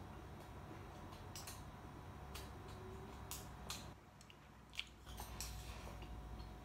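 A person eating rice: faint chewing with scattered soft clicks of chopsticks and a spoon against the rice bowl, and one sharper click late on.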